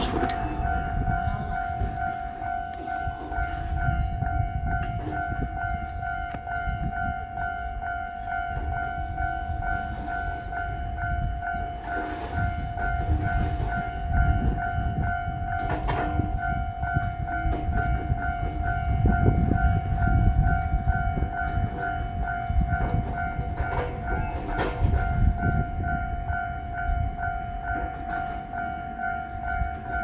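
Japanese level-crossing warning alarm ringing without a break: a steady tone under a rapid, evenly pulsed higher ding, signalling that the crossing is closed. A sharp crack comes right at the start, and low rumbling gusts run underneath.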